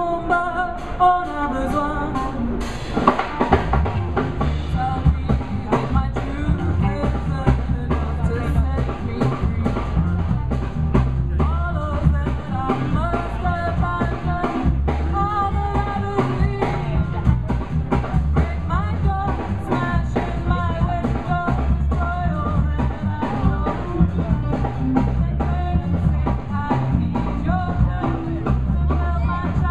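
Live band playing: a woman singing over acoustic and electric guitars, bass guitar and drum kit. The bass and drums come in fully about three seconds in.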